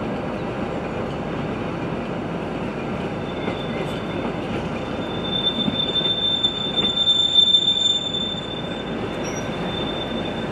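Carriages of the La Mure railway's electric train rolling along a curve, with the steel wheels squealing in a steady high whine that sets in about three seconds in, is loudest midway, and stops near the end.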